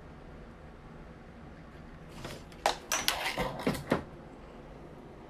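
A quick run of sharp clicks and knocks about two seconds in, lasting under two seconds, over a low steady hiss.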